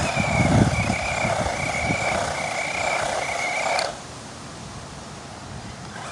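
Gptoys S912 RC car running at speed: a steady high electric-motor whine over a rushing noise, stopping abruptly about four seconds in.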